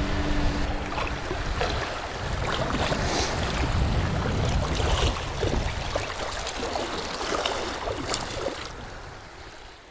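Shallow surf water washing and splashing as a snapper is let go in the wash, with many small splashes. It dies away over the last couple of seconds.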